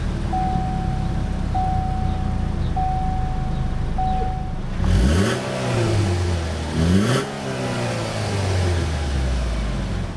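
2013 Chevrolet Malibu ECO's 2.4-litre four-cylinder engine idling and revved twice in quick blips, about five and seven seconds in. In the first few seconds a warning chime beeps four times, steady and evenly spaced.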